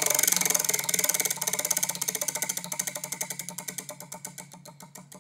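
Prize wheel spinning, its clicks rapid at first and slowing steadily as the wheel winds down toward a stop.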